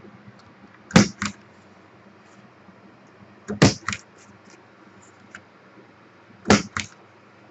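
Handheld corner-rounder punch clicking three times as it rounds off the corners of a paper bookmark, each press a sharp snap with a second, smaller click a moment later.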